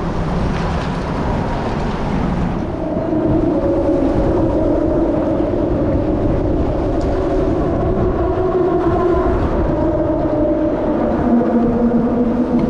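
A steady mechanical drone with a pitched hum that slowly drifts up and down, over a rushing background of wind and water noise.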